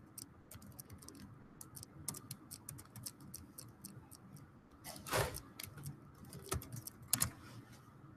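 Faint, irregular clicking of computer keyboard keys being pressed, with a couple of slightly louder knocks about five and seven seconds in.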